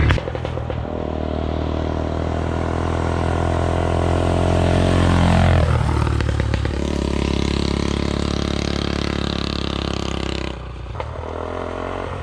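Straight-piped two-stroke Suzuki engine running under throttle. Its pitch climbs slowly, falls sharply about five and a half seconds in, then holds steady before the sound drops in loudness near the end.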